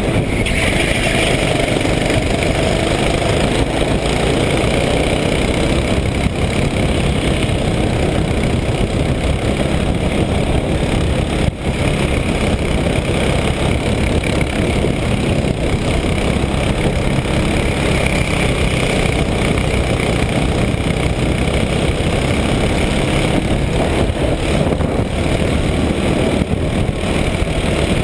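Racing kart's engine running continuously at speed, picked up by a camera mounted on the kart itself. The sound is loud and steady, mostly a dense rushing noise with little clear pitch, and it has no breaks.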